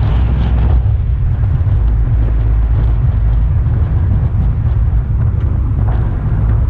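Steady, loud low rumble of wind buffeting a hood-mounted action camera on a moving car, mixed with the car's road noise.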